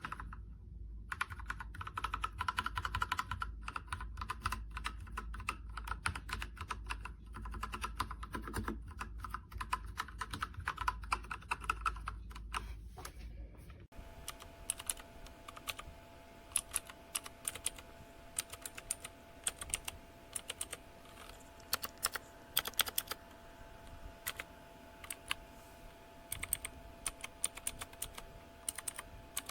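Typing on a MageGee 75% mechanical keyboard with red linear switches: a fast, irregular run of key clacks. About halfway through, the recording changes: a low hum drops out and a faint steady tone sits under the keystrokes.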